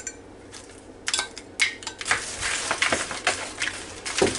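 A utensil stirring crispy fried onions into a mushroom-soup-and-milk mixture in a mixing bowl, scraping and clicking against the bowl. It starts with scattered clicks about a second in and becomes continuous scraping from about two seconds.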